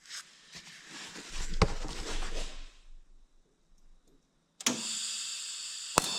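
Rustling handling noise with one sharp knock, then about four and a half seconds in a TIG welding arc strikes with a sudden crack and settles into a steady buzzing hiss on the copper radiator seam, with a second crack near the end.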